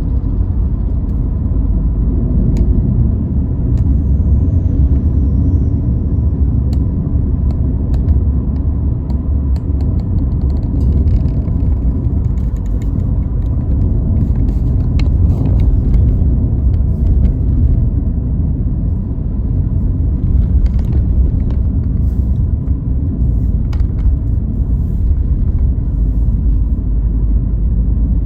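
Car being driven: a steady low rumble of engine and road noise, with a few faint ticks.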